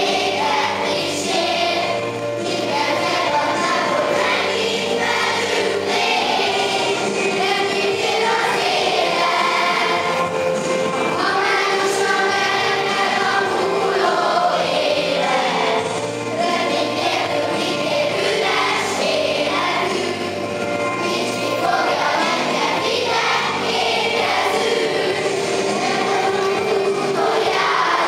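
Children's choir singing a Hungarian Christmas song, with sustained low accompaniment notes beneath the voices.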